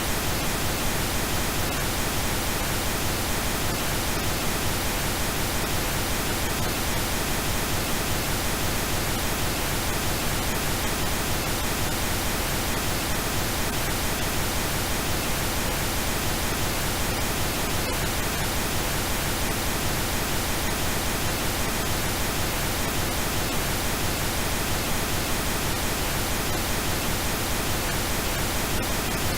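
Steady generated pink noise: an even, unchanging hiss across the whole range, with faint steady tones mixed into it.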